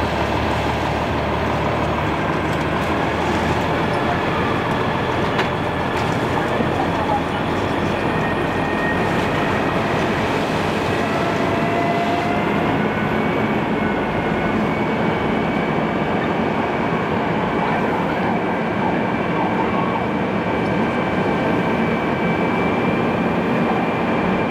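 Fire engine's diesel engine and fire pump running steadily at raised revs while pumping water to the hose lines: a loud, even mechanical rush that does not let up, with faint steady high whining tones.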